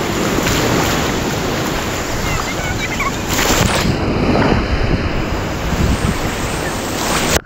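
Ocean surf breaking and water splashing close around a waterproof action camera held at water level, with wind buffeting the microphone. A brief, louder splash comes about three and a half seconds in.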